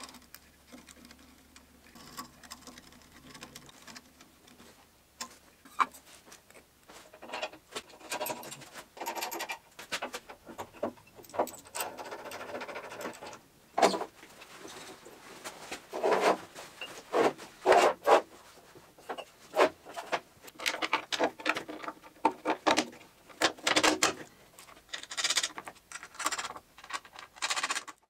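Hand work on metal parts: faint clicks and ticks as small nuts are driven onto an electric motor's terminal studs, then denser, louder taps, knocks and rubbing as the rubber belt is handled on the steel conveyor frame.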